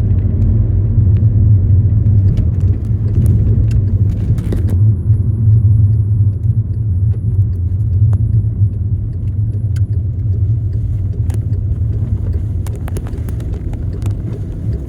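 Loud, steady low rumble with scattered light clicks and knocks.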